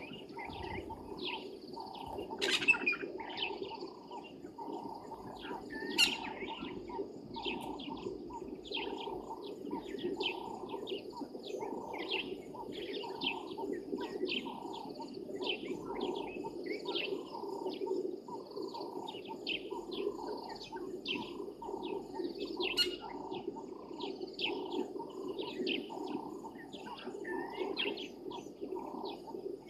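Dawn chorus of many birds: dense, repeated chirps and calls, with three sharp, louder calls standing out, over a steady low drone.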